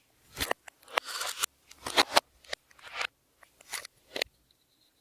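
Slime being squeezed and folded by hand, giving a run of irregular crackling pops and clicks as trapped air bursts. The pops fade out shortly before the end.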